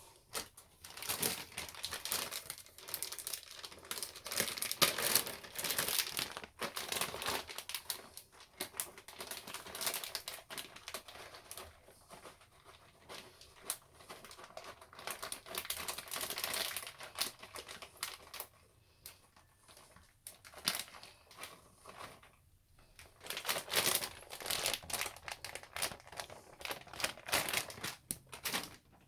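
Plastic or foil packaging crinkling and rustling as it is handled, in irregular bursts with a quieter stretch about two-thirds of the way through.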